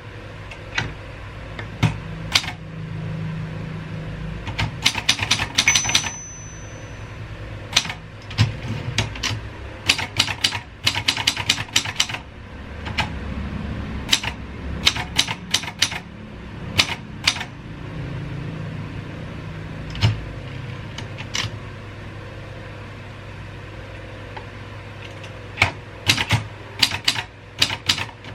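Keys of a 1950s Royal 202 manual typewriter striking in irregular runs of clicks, with short pauses between words. There is a brief high ring about six seconds in.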